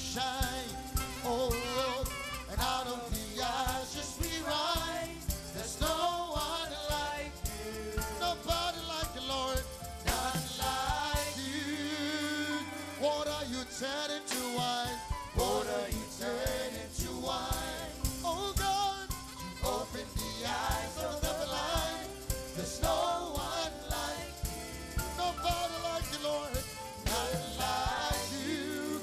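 Live gospel worship music: a man singing into a microphone over an electronic keyboard, with a steady beat.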